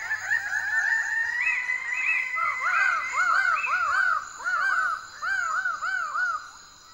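Male Raggiana birds of paradise calling at dawn: several birds overlap, each giving quick series of loud notes that rise and fall in pitch. The calls stop shortly before the end, leaving a steady high insect drone underneath.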